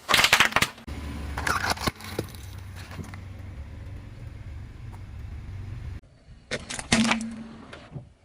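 Objects cracking and crunching under a car's tyre in short loud bursts, with the car's engine running low and steady in between.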